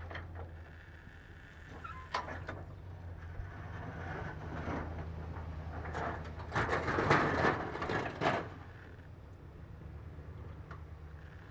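Chevrolet Silverado 2500HD pickup idling with a steady low hum. A few clicks come about two seconds in, then a louder spell of mechanical noise with knocks from about six to eight and a half seconds.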